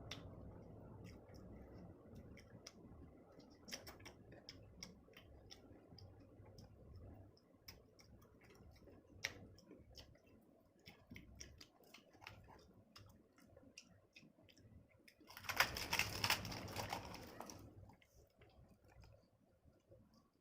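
Close-up eating sounds of a mukbang: many small, scattered mouth clicks and smacks, with a louder noisy stretch of about two seconds near three-quarters of the way through.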